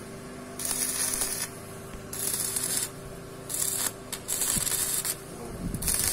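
Electric arc welding: the arc crackles and hisses in short runs of about a second each, about five of them with brief pauses between.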